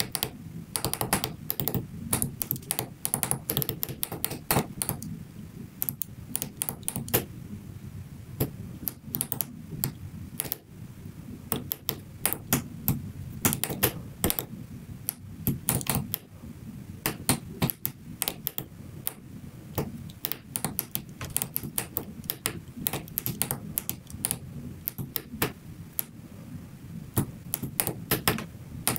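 Tactile push buttons on a breadboard clicking under a finger, pressed again and again in quick irregular runs, like typing.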